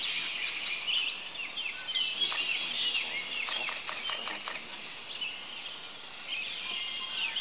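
Several wild birds singing and calling at once: overlapping chirps and quick downward-sweeping notes, getting busier near the end with rapid high trills.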